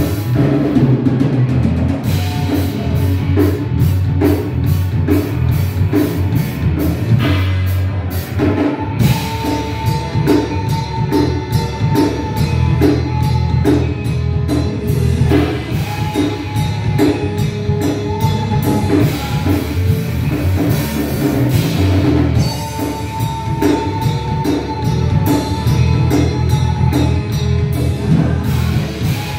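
Rock band playing with a steady drum kit beat and keyboards, heard from a television's speaker.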